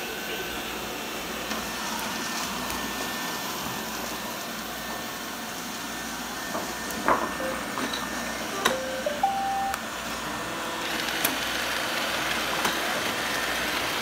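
Several robot vacuum cleaners, iRobot Roombas among them, running together on a concrete floor, giving a steady whirring hum of motors and brushes. A few clicks and two short beeps come a little past the middle as a Roomba's button is pressed. The hum grows louder about eleven seconds in.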